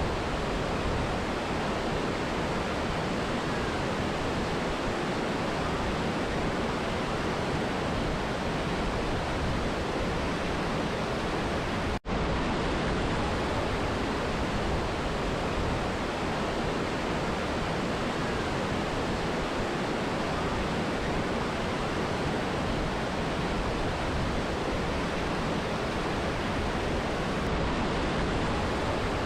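Mountain river and waterfall rushing in a steady, unbroken roar of water, with a momentary dropout about twelve seconds in.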